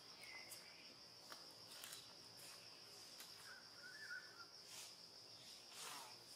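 Faint, steady high-pitched drone of insects, with a couple of faint chirps and a few soft rustles.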